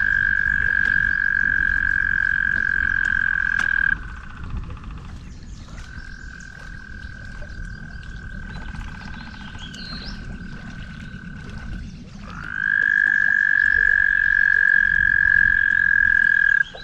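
Frogs calling in long, steady, high-pitched trills several seconds each: a loud trill that stops about four seconds in, a fainter one through the middle, then a loud one again that breaks off just before the end. A low rumble runs underneath.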